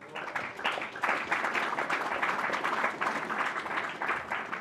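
Audience applauding, a dense spread of many hands clapping at a fairly even level.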